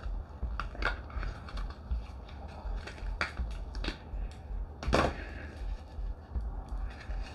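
Irregular clicks, crackles and knocks of a silicone mold being handled and flexed around a cured resin tray, with one louder knock about five seconds in.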